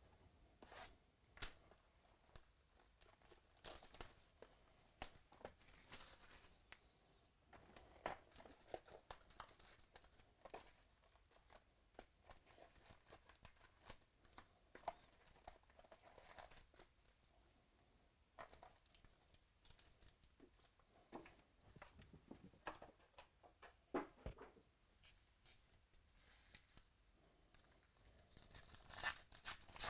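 Hands unwrapping a box of 2018 Donruss baseball cards and tearing open its foil card packs: scattered crinkling, rustling and tearing of plastic wrap and pack foil, with a louder burst of tearing near the end.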